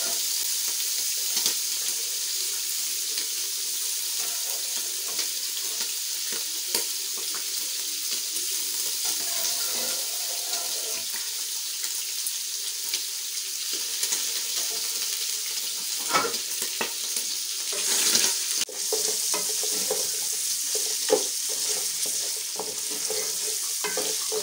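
Beef pieces sizzling steadily as they fry in a little oil in an aluminium pot, with scattered clicks and scrapes of a utensil stirring against the pot. A couple of louder clatters come about two-thirds of the way through.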